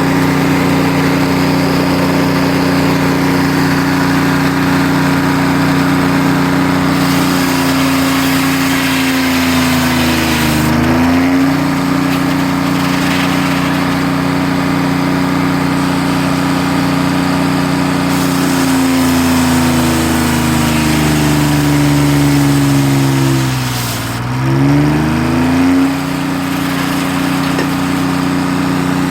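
Sawmill saw running at steady speed with a constant hum. Twice its pitch sags gradually as it takes a cut, with a hissing cutting noise on top, then climbs quickly back to speed when the cut ends.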